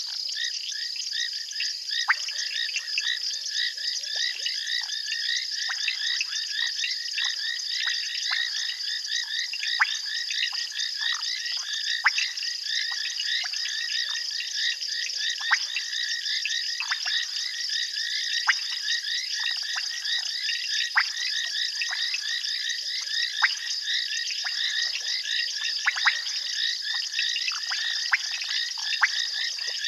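Dense chorus of frogs calling: many short, high-pitched pips overlapping continuously, with louder single clicks every few seconds.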